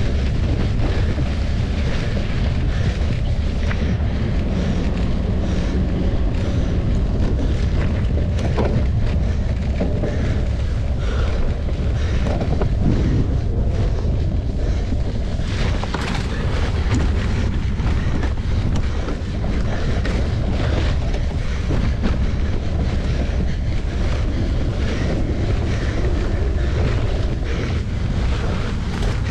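Wind buffeting the microphone of a camera on a mountain bike being ridden in a race, a heavy steady rumble with frequent small knocks and rattles from the bike.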